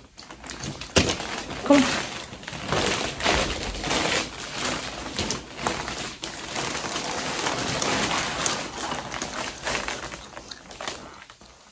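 Christmas wrapping paper being ripped off walls and crumpled: a steady rustle and crackle of tearing paper with many short, sharp rips, dying down near the end.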